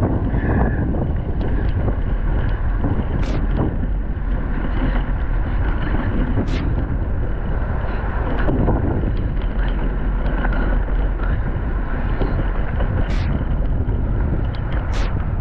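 Wind rushing over a handlebar-mounted GoPro Hero 8's microphone on a mountain bike riding down a dirt trail, a steady rush with the bike's rattle and a few sharp ticks now and then.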